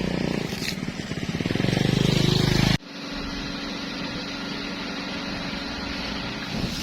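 Vehicle engine running and growing louder as it comes close, then an abrupt cut about three seconds in to a steadier, quieter engine hum.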